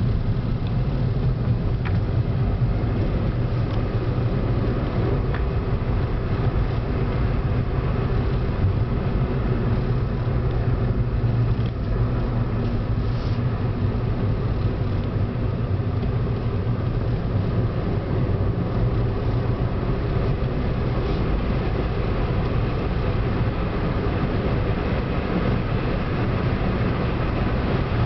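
Steady engine and tyre noise of a moving car, heard from inside the cabin, mostly a deep even rumble.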